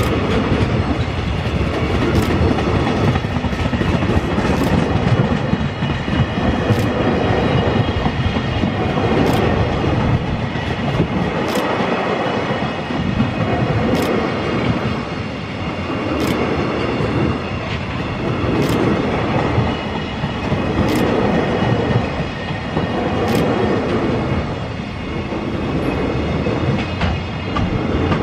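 Container freight train hauled by an EH500 electric locomotive passing on the rails: a steady rumble and clatter of wagon wheels, with a sharp click about every two seconds.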